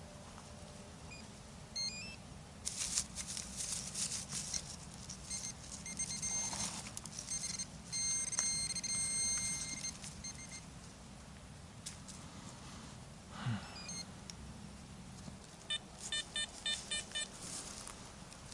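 Metal detector beeping on targets: a short stepped run of tones early, a long held tone in the middle, and a quick series of beeps near the end. Rustling and scraping in the forest litter come between the beeps.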